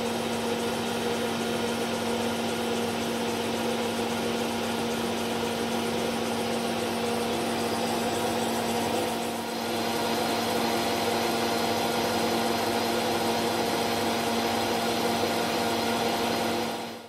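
Metal lathe running with a turning tool facing a metal clutch disc: a steady machine hum made of several fixed tones under an even hiss of cutting. It cuts off suddenly near the end.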